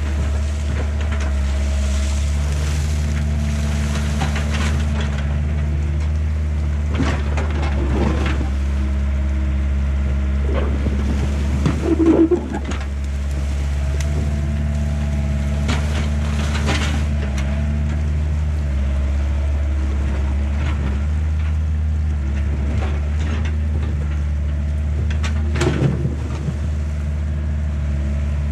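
Diesel engine of a 1990 Yanmar B50 mini excavator running steadily as it digs wet mud and debris, with several clanks and scrapes of the bucket, the loudest about twelve seconds in.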